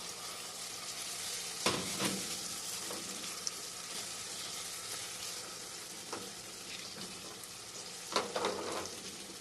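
Melted sugar sizzling steadily in a pot over high heat as chopped fruit, peels and beetroot are added, with a few knocks and clatters against the pot, the loudest cluster near the end.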